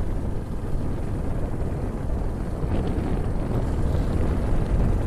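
Steady wind rumble on the microphone mixed with the road and engine noise of a motorbike riding along at a constant pace.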